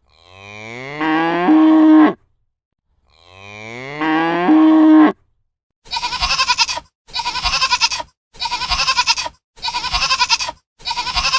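A cow mooing twice, two identical long calls that climb in pitch and end on a held note. From about six seconds in, a different animal call follows: a burst of rapid pulses, repeated five times at even spacing.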